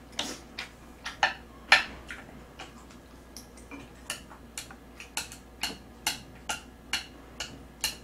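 Close-miked chewing: a run of short wet clicks and smacks, about two to three a second, steadier in the second half.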